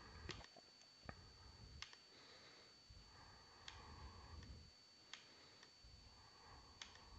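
Faint, scattered computer mouse clicks, about six in all, over low background hiss with a thin steady high-pitched whine.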